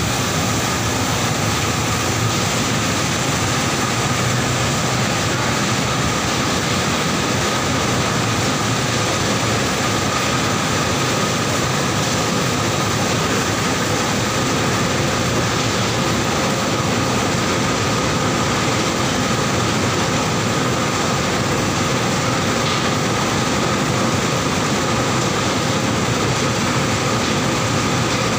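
Mustard oil mill machinery running: seed cleaner and screw oil expellers giving a steady, loud mechanical din with a steady high whine over it.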